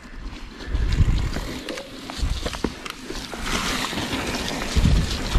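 Mountain bike rolling down a dirt trail: a low rumble of tyres on dirt with scattered knocks and rattles from the bike over bumps. Wind buffets the microphone, and it all grows louder near the end as the bike picks up speed.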